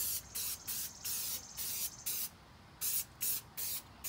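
Aerosol can of furniture polish spraying in a quick series of short hissing bursts, about a dozen in four seconds.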